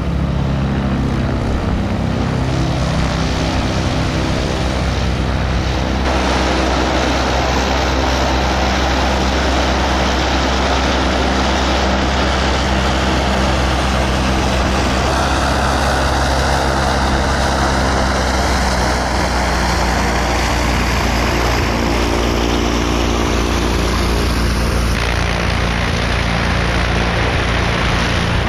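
AutoGyro Calidus gyroplane's piston engine and pusher propeller running steadily as it taxis, a loud, even engine drone with propeller noise.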